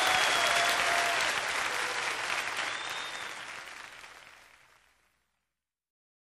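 Audience applause and cheering from a live concert recording, with a few whistles, fading out and ending in silence about five seconds in.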